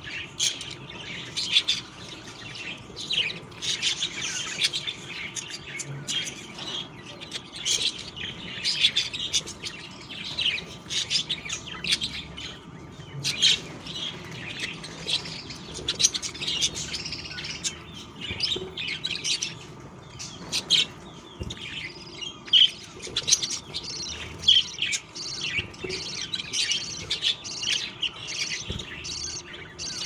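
Budgerigars chirping: a dense, continuous stream of short high chirps and chatter.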